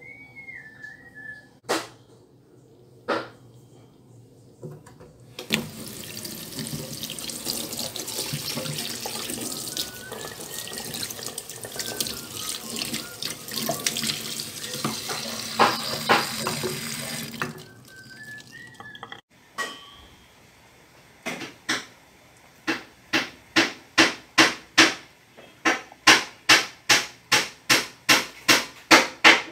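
Water from a tap running steadily into a sink as moringa leaves are rinsed, for about twelve seconds, with a few sharp clicks and a short whistled note before it. Near the end comes a quick regular run of sharp knocks, about two or three a second.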